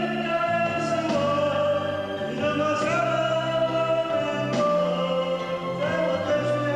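Singing over backing music, in long held notes that step from pitch to pitch.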